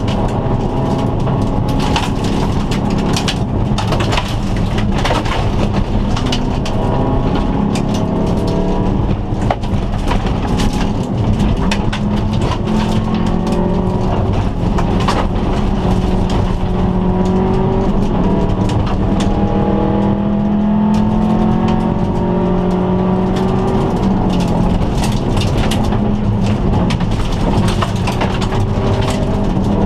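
In-cabin sound of a 2002 Subaru Impreza turbo wagon's turbocharged boxer engine at full rally pace on gravel, revving up again and again through the gears with a drop at each shift. Stones and gravel click and rattle against the car throughout.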